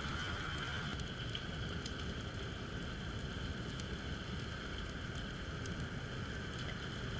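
Underwater ambience recorded by a submerged camera: a low rumble of moving water with scattered sharp crackling clicks and a steady faint high hum.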